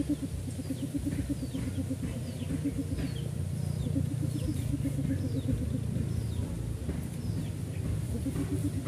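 A small engine running with a low, rapid, even pulse of about seven beats a second that fades and returns. Thin high bird chirps repeat faintly over it.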